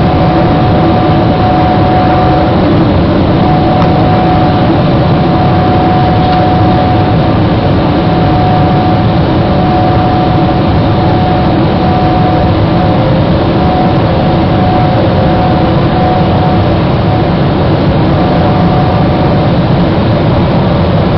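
Jet airliner cabin noise heard at a window seat: the engines running with a steady whine over a loud, even rush of air.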